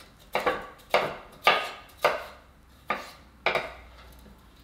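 Chef's knife slicing a yellow bell pepper on a wooden chopping board: about six sharp cuts, each knocking the board, roughly one every half second, stopping about three and a half seconds in.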